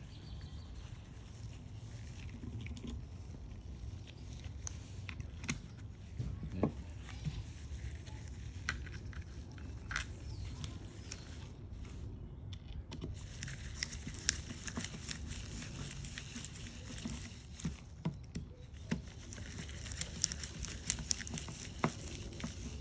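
Scattered small clicks, ticks and light handling noises of the plastic ratchet case and its small screws being worked back in by hand, with a steady low background hum.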